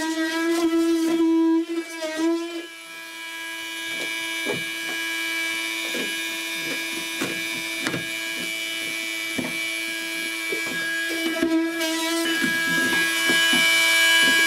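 Handheld electric power tool running with a steady buzzing tone, working into soggy, rotten plywood with irregular knocks and scrapes. Its pitch sags under load near the start and again near the end. It cuts off suddenly at the end.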